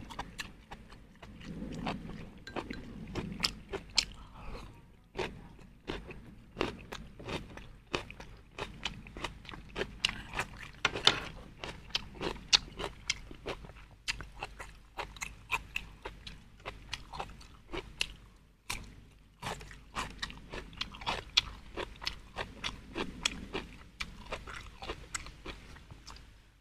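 Close-up eating sounds: a person chewing goat offal, with many sharp, crisp crunches and wet mouth sounds, several a second, broken by short pauses.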